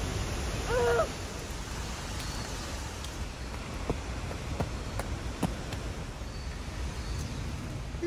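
Steady rushing roar of a rain-swollen waterfall, with a short hooting call about a second in and a few faint knocks.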